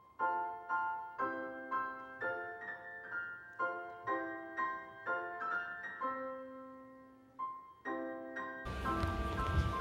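Background piano music: a melody of single notes, each struck and fading, about two a second. Near the end a noisier background comes in under the notes.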